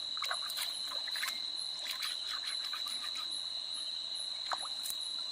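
Crickets trilling steadily at one high pitch, with irregular short scraping strokes from fish being scrubbed clean by hand.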